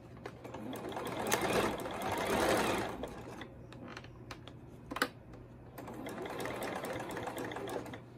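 Electric sewing machine stitching a seam through gathered fabric in two runs: a louder one for the first few seconds, then a second, quieter one near the end. Between them the machine stops, with a single sharp click.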